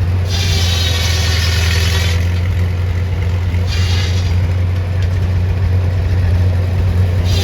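Engine running steadily at idle with a deep, even hum, and a high hiss that comes and goes three times.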